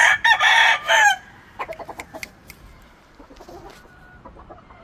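A gamefowl rooster crows once, a loud call of about a second, followed by soft clucking and scattered small clicks from the chickens.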